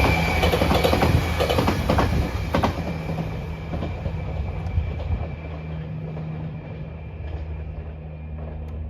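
Train passing close by, wheels clacking over rail joints with a thin steady squeal, the noise fading as it draws away.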